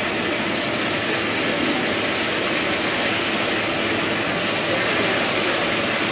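Steady rushing hiss from a stacked aluminium steamer cooking on its burner: flame and steam running evenly, with no change.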